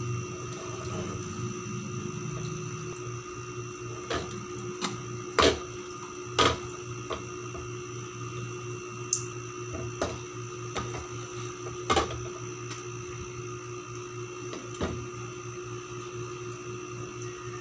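Scattered sharp knocks and clinks of cookware, the loudest a pair about five and six seconds in and another about twelve seconds in, over a steady hum.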